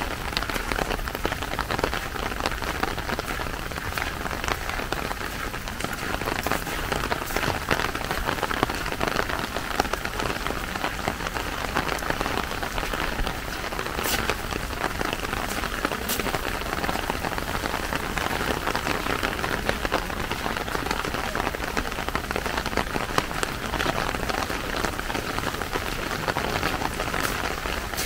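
Steady rain falling and pattering on surfaces, with individual drops ticking through it and a couple of sharper drop clicks about halfway through.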